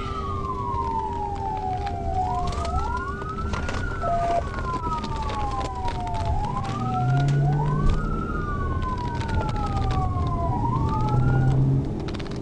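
Police car siren on a slow wail, two staggered tones rising quickly and falling slowly, until it cuts off near the end. A short beep sounds about four seconds in, over the patrol car's engine and road rumble.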